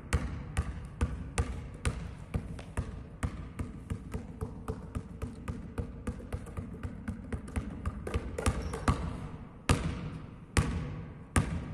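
A basketball dribbled fast and low on a sports hall floor, a quick steady run of bounces several times a second, echoing in the hall. Near the end come a few harder, slower bounces.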